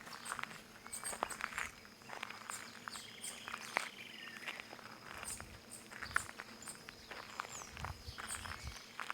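Footsteps crunching over stones and plants in irregular steps, with birds chirping and whistling in the background.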